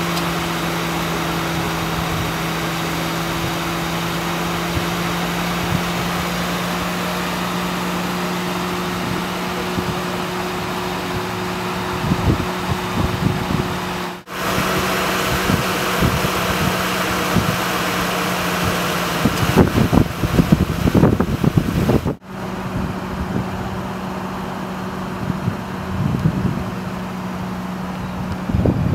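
Ford Crown Victoria's 4.6-litre V8 idling with a steady low hum. The sound drops out briefly about halfway through and again about three-quarters through, and there are some irregular low rumbling bumps a little before the second drop-out.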